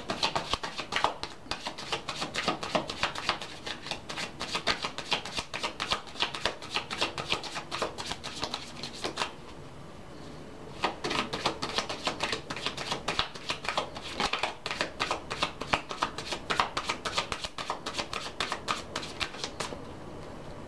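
A deck of tarot cards being shuffled by hand: a quick, dense run of papery clicks and rustles that pauses for about a second and a half about halfway through, then carries on.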